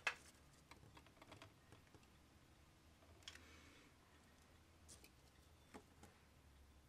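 Near silence broken by a few faint clicks and taps of a soldering iron and tweezers on a circuit board, the sharpest click right at the start.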